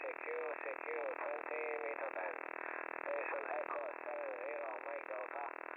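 HF receiver audio on the 20-meter amateur band: strange warbling tones that bend up and down in short pieces over a steady narrow-band hiss. The uploader likens the signal to the old 1970s 'Woodpecker' over-the-horizon radar.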